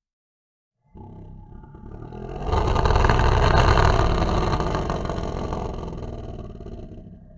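A long, low, rough human vocal sound. It starts about a second in, swells to its loudest around three to four seconds in, then slowly fades out.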